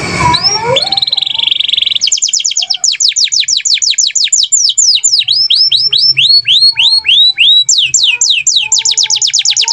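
Domestic canary singing a long song. After a fading rush of noise in the first second, it gives a fast buzzy trill, then a run of rapid, high notes that each sweep downward, several a second, changing speed from phrase to phrase, and near the end a very fast trill.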